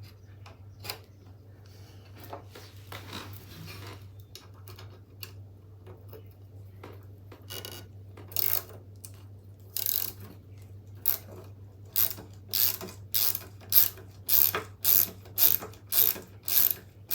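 Ratcheting tool being worked in repeated strokes, a short burst of ratchet clicks with each stroke, coming steadily about every half second in the second half. Quieter scattered handling clicks come before.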